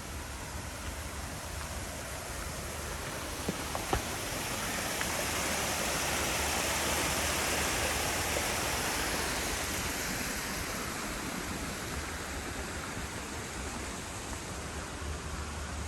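Rushing water of Huntington Falls, an artificial waterfall, as a steady splashing hiss that swells in the middle and eases off again, with a couple of light clicks about four seconds in.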